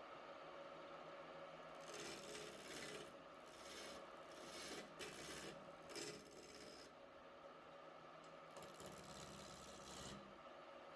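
Wood lathe running with a steady motor hum while a tool scrapes against the spinning wooden workpiece in several strokes through the first half, then once more near the end.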